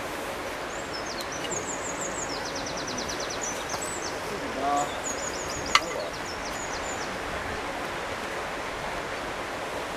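A small bird singing quick, high, repeated-note trills over steady outdoor background noise, with one sharp click a little past the middle.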